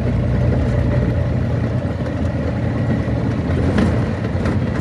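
Engine and road noise heard from inside the cabin of a moving vehicle: a steady low drone.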